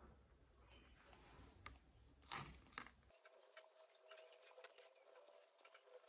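Near silence with faint clicking and ticking as a parrot chick eats hand-rearing formula from a metal spoon, its beak working against the spoon; a sharper pair of clicks a little past two seconds in.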